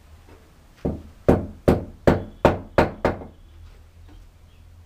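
Seven quick hammer blows, about two and a half a second, on a piece held against the wall to fix a wooden shelf support; the first blow is lighter than the rest.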